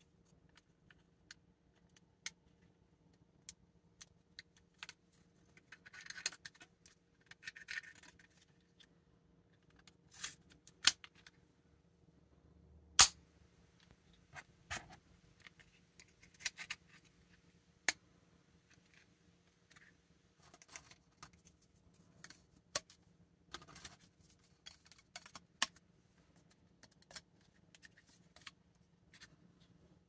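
Hard plastic parts of a 3D-printed snap-fit mini crossbow clicking and scraping as they are handled and snapped together, with a few sharp snaps standing out among many light clicks.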